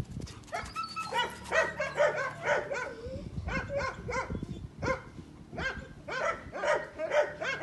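A dog barking and yipping in quick, high-pitched calls, two or three a second, broken by a couple of short pauses.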